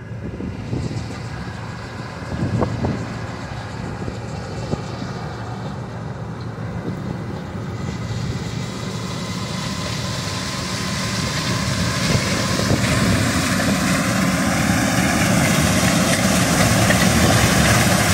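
Combine harvester running steadily with a low engine drone, a few knocks early on, and a hiss that builds over the second half as the sound grows steadily louder.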